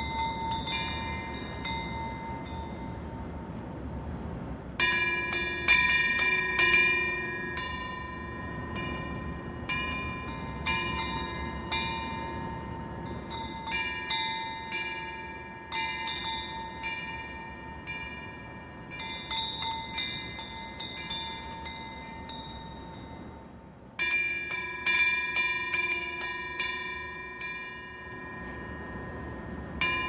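Korean temple wind bells (pungyeong) on the eaves, their clappers swinging in the wind. Irregular clusters of clear ringing strikes, busiest about five seconds in and again near the end, with the bell tones ringing on between strikes. A low steady rush runs underneath.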